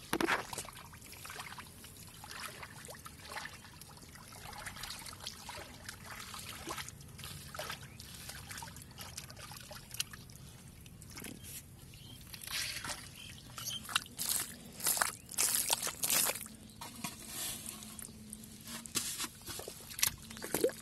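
Hands working through wet mud and shallow muddy water: squelching, sloshing and trickling, with a run of sharper splashes about two-thirds of the way through.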